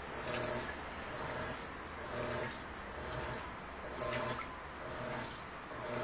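Electrolux Turbo Economia 10 kg (LTD11) top-load washing machine agitating a bedspread in water, running quietly. Water sloshes and splashes in the tub, and a soft motor tone rises and falls about once a second with each agitator stroke.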